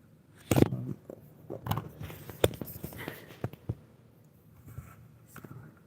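Handling noise from a plastic smoke alarm: a sharp knock about half a second in, then a scatter of light clicks and taps as the unit is turned over in the hands. The horn does not sound.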